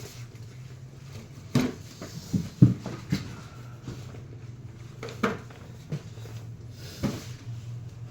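Scattered clicks and knocks of objects being handled, about seven over several seconds, over a steady low hum.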